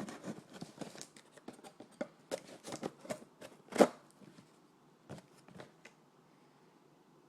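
A package being handled and opened: a quick run of rustles, rips and clicks, the loudest just before four seconds in, dying away about six seconds in.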